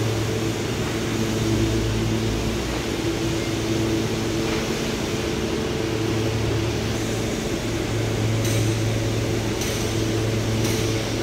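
Steady mechanical hum with a low drone and a few steady higher tones, the running of fans or machinery in a car workshop, with a few faint ticks in the last few seconds.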